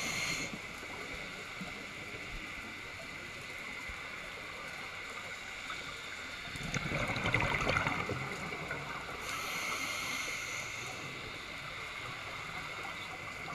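Scuba regulator breathing heard underwater through a camera housing: a rush of exhaled bubbles about halfway through, then the hiss of an inhale, over a steady underwater hiss and crackle.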